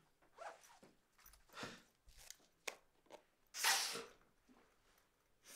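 A man's short, sharp breaths and sniffs through the nose, the loudest sniff about three and a half seconds in, with a small click in between.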